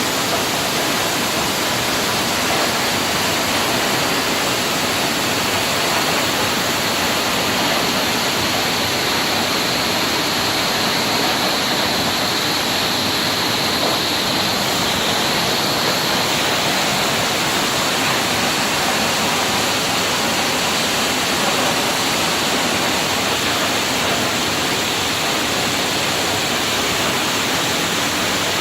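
Waterfall crashing, a loud steady rush of falling water.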